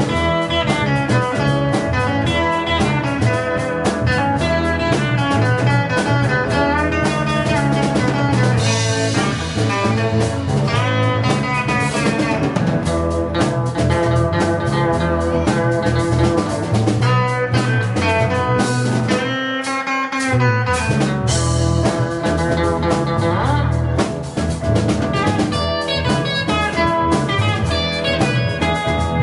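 Rock and roll band playing live on electric guitars, electric bass and drum kit. The bass and drums drop out for about a second some twenty seconds in.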